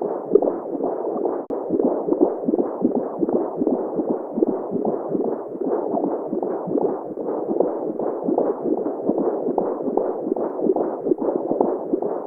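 Womb sounds: a muffled heartbeat pulsing quickly and evenly over a steady low hiss, with nothing heard above the low and middle range.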